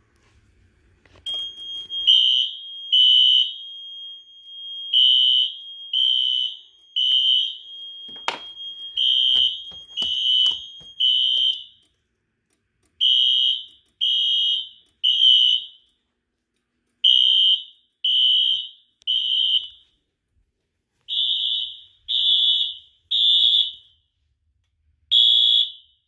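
Wheelock fire alarm horns, synchronized, sounding the temporal-3 evacuation code: three sharp high beeps, then a pause, repeating. A smoke detector magnet test has put the system into alarm. A steady high tone sounds under the first groups of beeps and stops about eleven seconds in.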